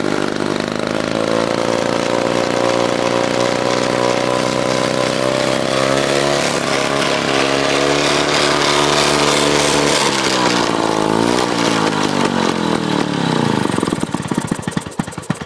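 Clinton two-stroke lawn mower engine running on its own, its speed shifting up and down a few times. Near the end the firing strokes spread apart as it slows and dies away.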